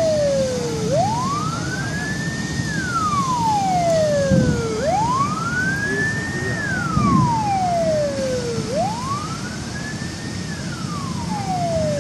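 Police car siren in a slow wail, rising and falling about every four seconds, three times over, above a low rumble of traffic and fire. Two dull thumps come about four and seven seconds in.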